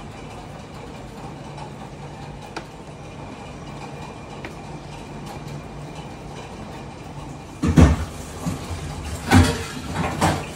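A steel ladle stirring and lifting cooked biryani rice in a large stainless steel pot, with a few faint clicks over a steady low hum. Near the end come a few loud knocks.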